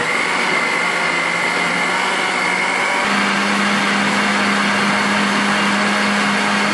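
Countertop jug blender running at full speed, liquidising beetroot, apple, orange and spinach with water into juice: a loud, steady whir whose hum steps up slightly in pitch about three seconds in.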